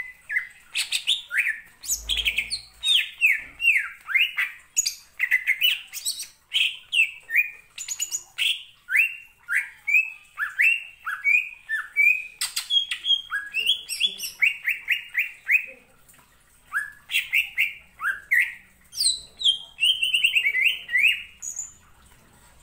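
Male green leafbird (cucak ijo) singing a fast, unbroken run of loud whistled notes, many of them sliding downward. The song breaks off for about a second roughly two-thirds of the way through, then resumes with higher, shriller notes near the end.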